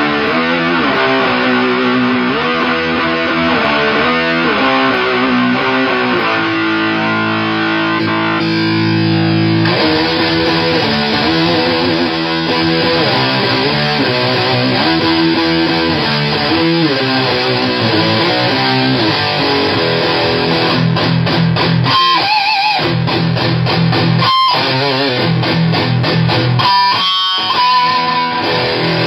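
Distorted electric guitar played through fuzz pedals into an Orange Super Crush 100 solid-state amp: heavy chord riffs with held, ringing chords, and near the end a few single high notes with vibrato.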